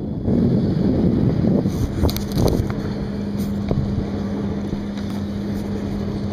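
Wind buffeting the microphone over the river water, with a few knocks and clicks around two seconds in, after which a steady low motor hum takes over.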